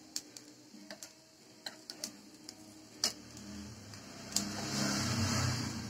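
Breaded cutlets shallow-frying in oil in a nonstick pan, with scattered crackles and pops. A louder rush of noise swells about four seconds in and fades near the end.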